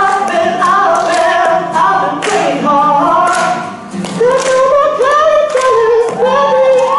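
Live singing with an acoustic guitar: long, wavering held vocal notes over strummed chords.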